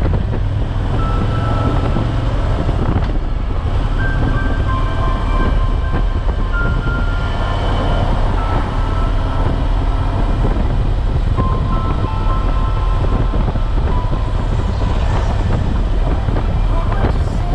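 Harley-Davidson Tri Glide Ultra trike's V-twin engine running steadily on the road, mixed with wind noise, with music faintly audible underneath.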